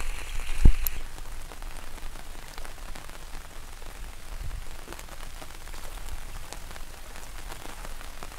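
Steady rain falling on floodwater and foliage, with scattered drops ticking close to the microphone. A single brief low thump comes just under a second in.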